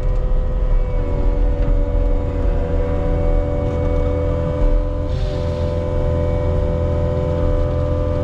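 Diesel engine of a piece of compact earthmoving equipment running steadily, a low rumble with a steady whine over it.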